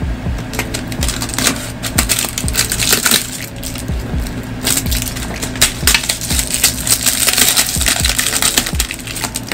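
Plastic shrink wrap being peeled and torn off a cardboard box, crinkling and crackling in uneven bursts that grow busier in the second half.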